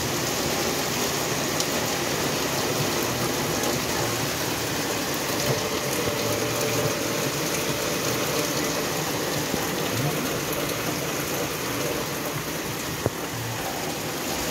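Heavy rain falling steadily on the paved street and sidewalk, an even hiss of a downpour. A single short knock sounds near the end.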